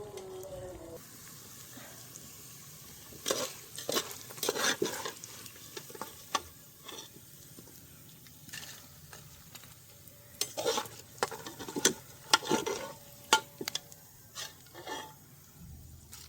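A metal spoon stirring and scraping against cookware, with irregular clusters of knocks and clinks, over a faint steady sizzle.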